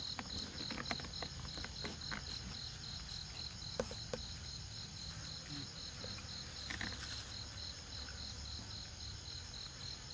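Insects chirping: a pulsed chirp repeating about four times a second over a steady high buzz, with a few soft clicks and rustles.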